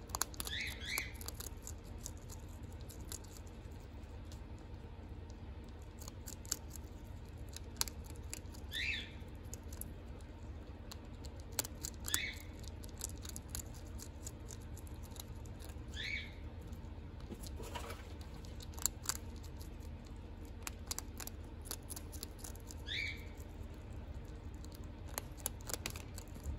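Mink chewing and crunching kibble, a run of small crisp clicks from its mouth and the bowl. A short high chirp comes every few seconds, about six times, over a low steady hum.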